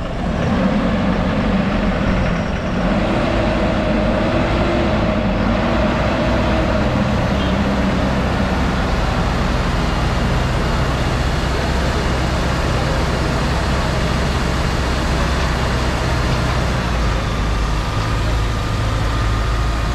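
Diesel engine of a new Eicher truck idling steadily.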